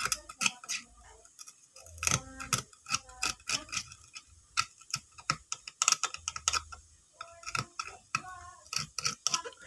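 Irregular sharp clicks and scratches of a metal tool picking and scraping at the charred carbon on a burnt amplifier circuit board, near the power transistors.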